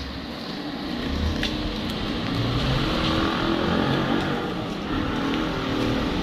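A motor vehicle engine running, with general street noise.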